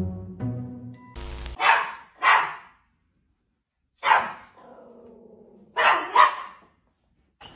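Background music stops about a second in, then a small dog barks in short sharp barks: two close together, one more after a pause, then two more near the end. It is alert barking at a mail carrier coming to the door.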